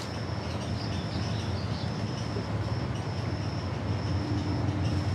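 Steady low rumble of background vehicle or machinery noise, with a faint high-pitched whine that comes and goes.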